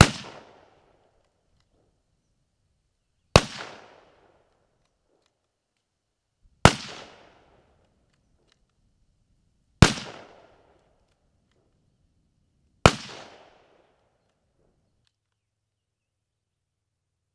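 Five unsuppressed 6.5 Creedmoor rifle shots, about three seconds apart, each a sharp crack followed by a short echo that dies away within a second.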